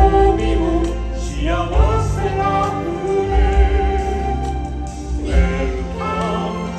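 Christmas show music with voices singing over a band backing and a strong bass line.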